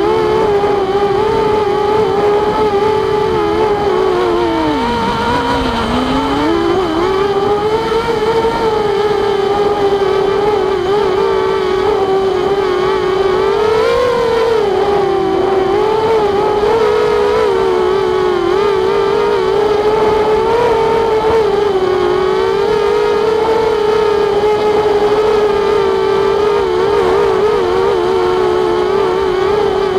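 Walkera Rodeo racing quadcopter's motors and propellers whining, heard up close from the onboard camera, the pitch wavering constantly with the throttle. The pitch drops sharply twice about five seconds in as the throttle is eased off, then climbs back, with a brief surge a little before the middle.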